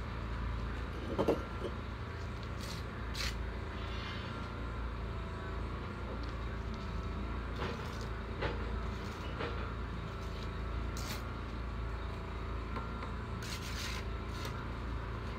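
Mason's trowel scraping and tapping on clay brick and mortar in short, scattered strokes, the loudest a knock about a second in, over a steady low rumble.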